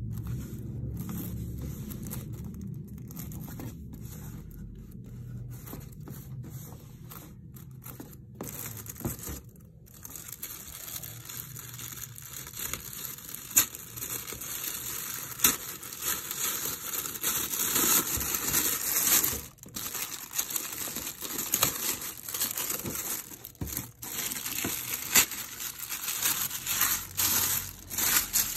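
Thin white wrapping around a boxed figure being crinkled and torn off by hand, irregular rustling with many sharp crackles, busier and louder in the second half.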